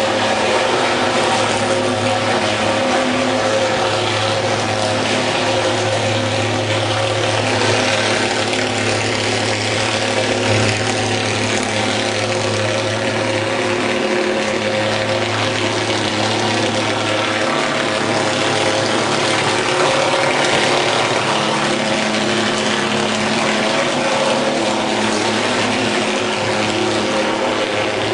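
Handheld thermal fogging machine running with a steady, unbroken drone.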